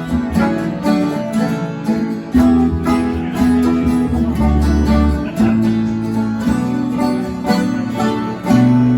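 Instrumental music: quick fingerpicked acoustic guitar with a run of low bass notes underneath, in a bluegrass or country style.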